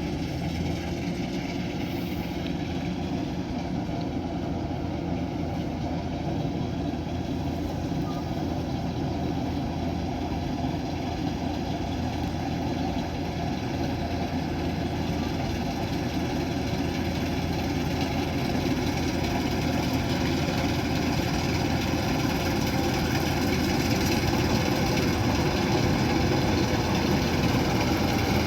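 Kubota DC108X combine harvester's diesel engine running steadily, growing gradually louder toward the end.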